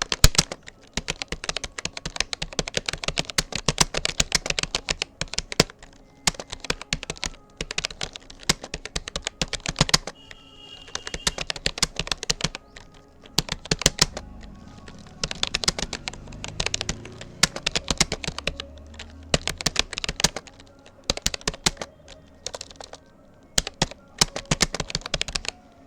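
Fast, continuous typing on a Rapoo computer keyboard: rapid keystroke clicks in long runs broken by a few brief pauses, with a low rumble in the middle stretch.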